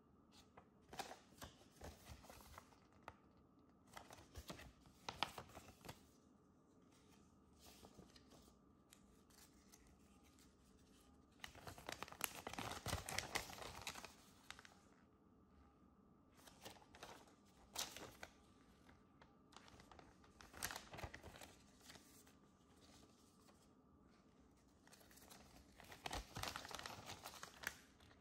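Faint paper rustling and crinkling as a folded paper instruction leaflet is handled and unfolded. It comes in short scattered rustles, with a longer stretch of rustling about twelve seconds in and again near the end.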